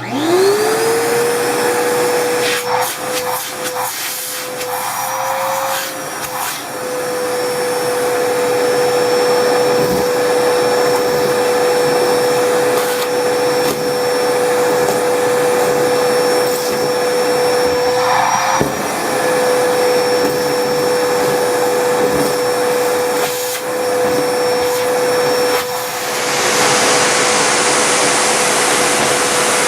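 Numatic James tub vacuum cleaner switching on, its motor spinning up within a second to a steady high whine over a rush of air. It sucks up dirt, with scattered clicks and rattles of debris, and the rush of air gets louder near the end.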